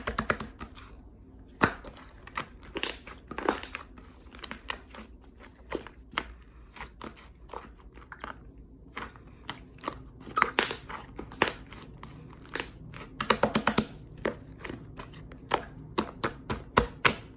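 Hands squeezing and stretching slime, making irregular wet clicks and crackling air-bubble pops, with quick runs of rapid clicks about ten and thirteen seconds in.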